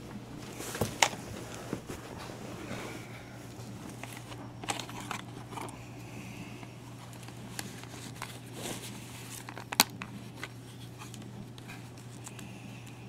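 Handling noise from a portable cassette player being picked up and turned over: scattered sharp plastic clicks and short rustles over a steady low hum. The loudest clicks come about a second in and again just before ten seconds in.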